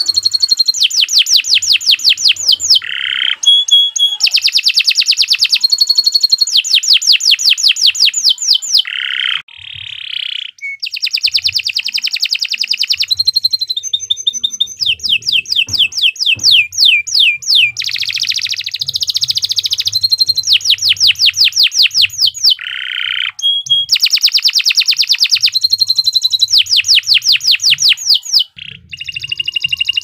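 Domestic canary singing a long, continuous song of fast trills, each run of rapidly repeated notes lasting a second or two before switching to another phrase. There are short breaks about a third of the way through and near the end.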